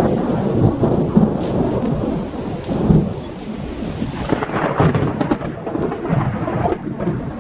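Thunderstorm sound effect: thunder rumbling in repeated swells over a steady hiss of rain.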